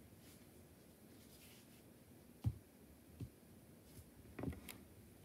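Quiet room with a few faint, short taps and clicks. The loudest comes about two and a half seconds in, and a few softer ones follow over the next two seconds.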